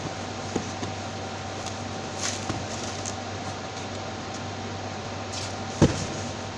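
Forklift running with a steady hum, with a few light clicks and one sharp knock near the end.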